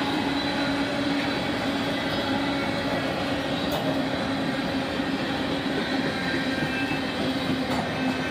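Train cars rolling past on the rails: a steady, continuous running noise with a constant low hum underneath.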